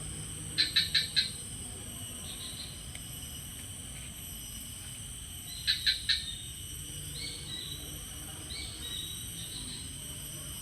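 A bird calling in short bursts of three or four quick, sharp chirps, twice, with a few softer notes between. Behind it runs a steady high drone of insects.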